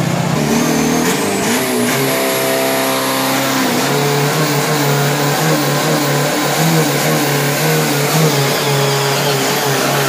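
Race-built Isuzu D-Max pickup's 3.0-litre turbo-diesel engine revved hard during a burnout, rear tyres spinning. The revs climb in steps about two seconds in, then hold at a high, wavering pitch.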